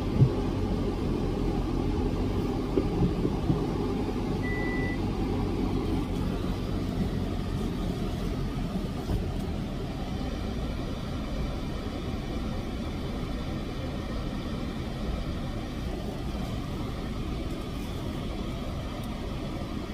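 Steady low rumble inside a car's cabin with the engine running, a couple of light knocks in the first few seconds and a short high beep about four seconds in.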